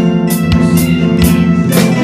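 Acoustic guitar strummed along with a drum-kit beat tapped out on a phone drum app, with sustained chords under regular drum hits.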